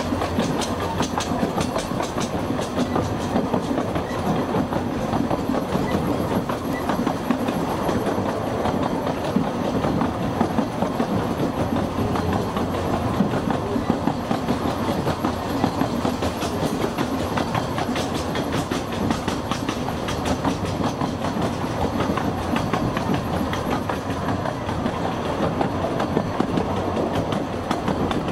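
Narrow-gauge railway carriages running along the track: a steady rumble with the clickety-clack of wheels over rail joints.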